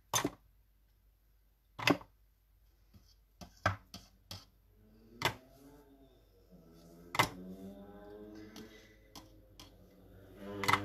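Craft supplies being handled on a work table: a scatter of sharp knocks and clicks, about eight in all, as things are picked up and set down. From about six seconds in, faint music comes in underneath and grows louder near the end.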